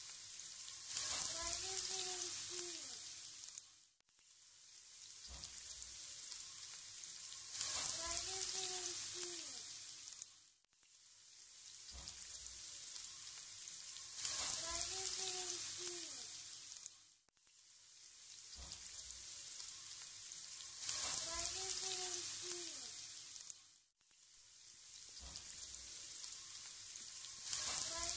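Oil sizzling under raw potato slices frying on a double grill pan. The same stretch of sizzling repeats about every six and a half seconds, each time swelling to its loudest and then fading almost to nothing before starting again.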